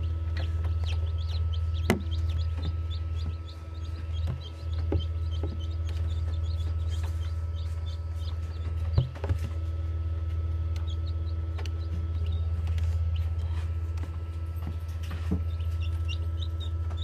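Newly hatched chicks peeping inside an incubator: short, high chirps coming several a second in runs, over a steady low hum, with a couple of sharp knocks about two and nine seconds in.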